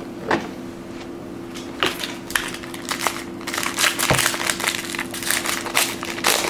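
A foil baseball card pack wrapper crinkling and crackling as it is handled and torn open, thickest from about halfway on, with a few light knocks before it.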